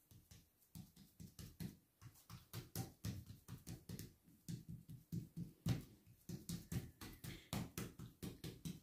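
Faint, quick soft taps, about four or five a second, from fingertips pressing and patting a thin sheet of yeast dough out across an oiled granite countertop.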